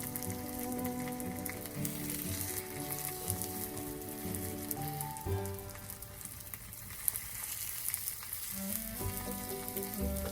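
Food sizzling and spitting in a hot pan over a campfire, with background music playing over it.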